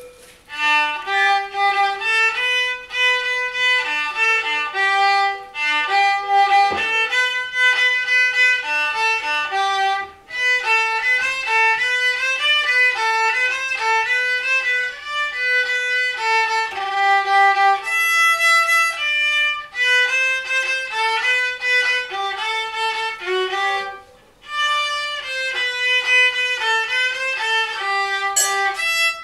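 A young girl playing a simple melody on a solo violin, one bowed note after another, with two brief breaks between phrases, about ten seconds in and again about twenty-four seconds in.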